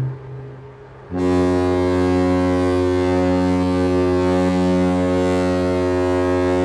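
A ship's horn sounds one long, deep, steady blast starting about a second in. Right at the start the tail of a different, higher-pitched horn cuts off, as between two ships exchanging blasts.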